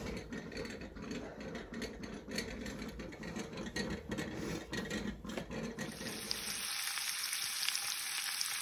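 A low rumble with scattered clicks, then from about six seconds in, bacon sizzling steadily in a frying pan.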